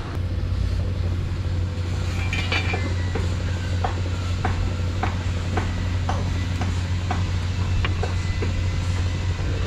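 Steady low machine hum, with a brief scrape about two seconds in and then light, evenly spaced taps about twice a second.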